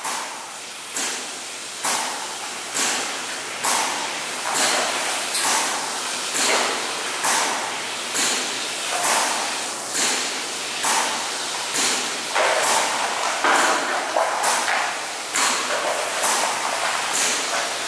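Resin spray gun hissing as it sprays resin onto fiberglass mat, in pulses that swell sharply and fade about once a second.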